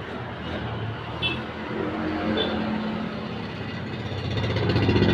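A motor vehicle engine running with a low hum, growing louder near the end.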